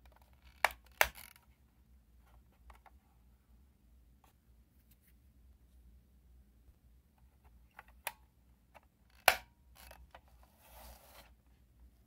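Sharp plastic clicks from the battery door of a Sony D-E200 Discman being unlatched and opened, two about a second in, then more clicks around eight to nine seconds in as it is snapped shut. A brief soft scrape of the plastic case being handled follows near the end.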